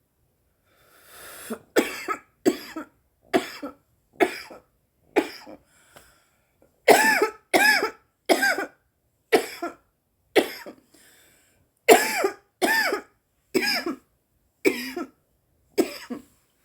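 A woman in a long coughing fit after inhaling cannabis vapour. It opens with a rasping breath about a second in, then about sixteen hard, harsh coughs come at uneven intervals, some in quick pairs.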